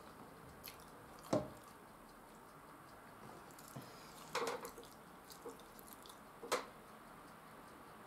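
Quiet wet mouth sounds of a person eating: a few short smacks and clicks, one about a second in, a small cluster a few seconds later and another near the end of the eating.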